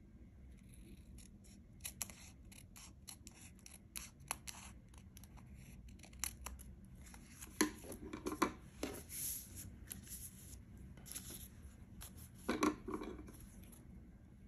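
Small scissors snipping through thin patterned origami paper: a run of short, crisp snips, with louder bunches of cuts about halfway through and again near the end.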